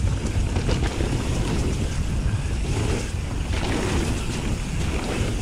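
Wind buffeting a GoPro Hero 7 Black's microphone on a mountain bike descending at speed, a steady loud rumble. Tyres run over loose loam beneath it, with scattered short clicks and rattles from the bike over bumps.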